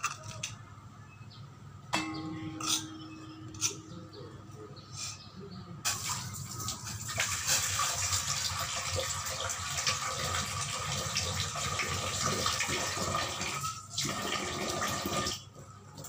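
Tamarind water being poured from a metal cup into a stainless-steel bowl of ground peanut paste: a steady splashing pour that starts about six seconds in, lasts about nine seconds and stops suddenly. Before it come a few sharp clinks, one followed by a short ringing tone.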